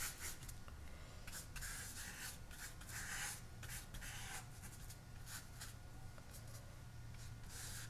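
Paintbrush laying acrylic paint onto smooth hot-press watercolour paper: a series of faint, soft, irregular brushing swishes over a steady low hum.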